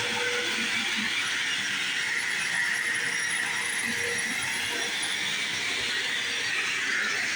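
Bissell CleanView Revolution upright vacuum cleaner running steadily while vacuuming, set to its lowest height setting: an even rushing hiss with a faint steady hum underneath.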